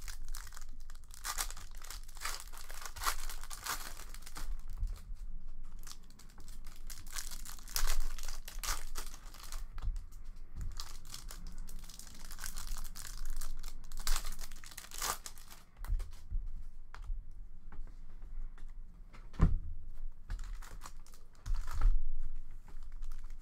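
Foil wrappers of 2019-20 Upper Deck Allure hockey card packs being torn open and crinkled by hand at close range, with irregular crackles and a few sharper clicks as the packs and cards are handled.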